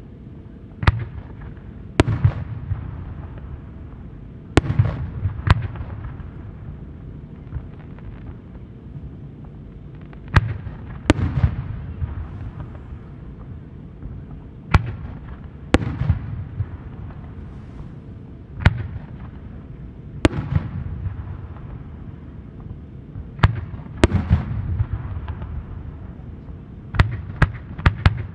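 Aerial firework shells going off: sharp bangs every few seconds, often in pairs about a second apart, each followed by a low rumbling echo. A quick run of bangs comes near the end.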